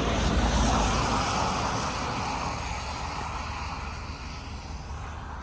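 Rushing noise of a passing vehicle, loudest at the start and fading away steadily over a few seconds.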